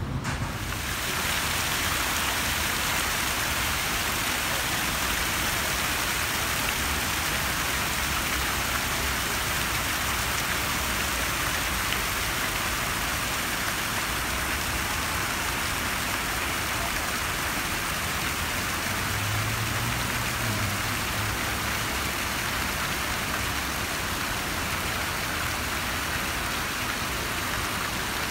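Fountain jets splashing steadily into a tiled pool: a continuous rush of falling water.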